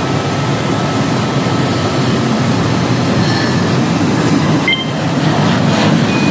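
Steady rumble of jet airliner engines across the airfield, with an airliner taking off in the distance, played back at double speed.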